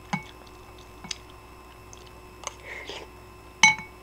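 A metal spoon clinking against a bowl of ramen four times as it scoops, each clink ringing briefly. The last clink, near the end, is the loudest.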